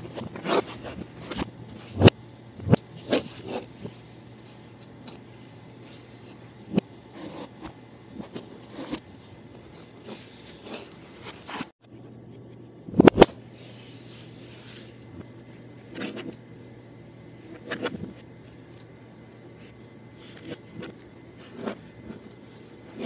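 Hands handling Play-Doh and brushing a paper-covered surface close to the microphone: scattered taps, rubs and scrapes over a steady low hum. The sound cuts out briefly midway, and a sharp knock follows just after.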